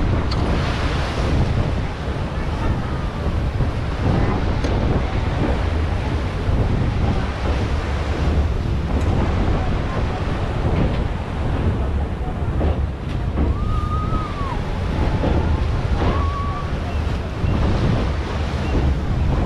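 Steady wind rushing over a microphone held out of a moving train's window, mixed with the rush of churning sea water below. A couple of faint short whistle-like tones come in about two thirds of the way through.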